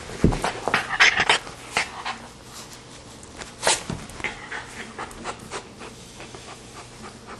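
Small white dog panting close up, with irregular scratchy rustles and knocks as it is handled and its fur brushes against the microphone.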